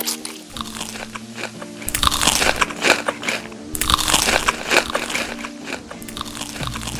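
Crunchy food being bitten and chewed close to the microphone, loudest in two long crunching stretches in the middle, over soft background music.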